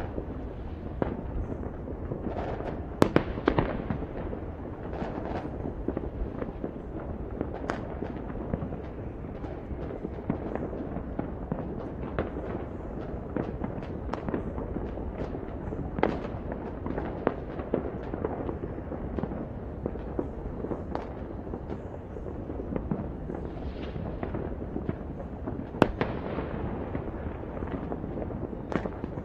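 New Year's Eve fireworks going off all over a city: a continuous rumble of many overlapping bangs with scattered sharper cracks, the loudest about three seconds in and again near the end.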